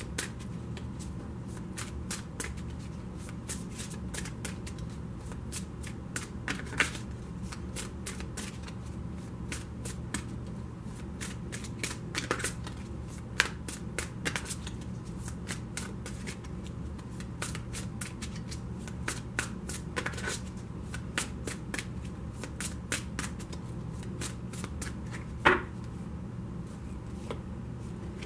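Deck of cards being shuffled overhand by hand: a steady run of quick, irregular card flicks and slaps, with one louder snap near the end, over a steady low hum.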